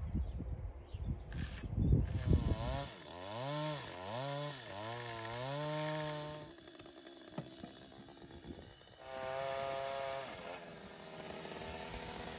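A few knocks of a tool on wood, then a Stihl two-stroke chainsaw revving up and down in several spells with short gaps between.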